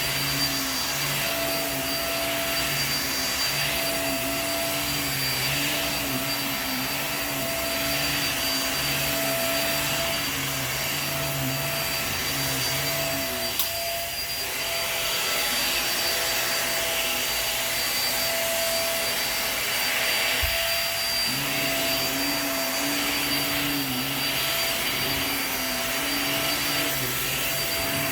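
Upright vacuum cleaner running steadily over carpet, with a constant high motor whine. The lower hum wavers up and down in pitch as the machine is pushed back and forth.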